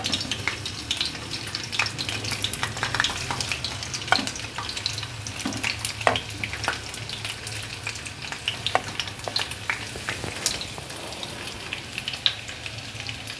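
Marinated fish steaks sizzling in shallow hot oil in a frying pan as pieces are laid in, with a continuous crackle and many sharp pops of spattering oil.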